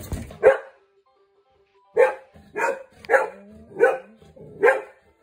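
Golden retriever barking six times: a single bark, a pause of about a second and a half, then five barks in an even run.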